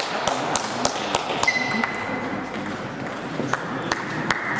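Table tennis balls clicking off bats and tables in quick, irregular succession: the rally at this table plus other tables around the hall. A brief high squeak about one and a half seconds in.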